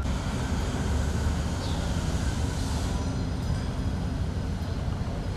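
Steady low rumble of passing vehicle traffic.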